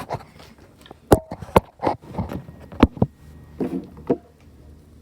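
A new tripod being handled: irregular sharp clicks and knocks with short rustles, dying away about four seconds in.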